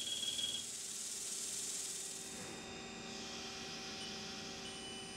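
Haas CNC lathe cutting soft jaws under flood coolant: a steady hiss of coolant spray over the spinning chuck, with a faint machine hum of steady tones beneath it. The highest part of the hiss thins out a little past halfway.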